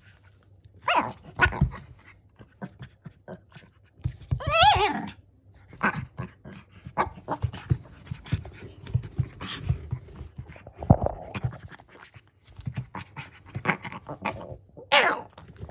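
Shih Tzu panting and giving short growly 'gao' calls, with a longer wavering call about four and a half seconds in and another near the end.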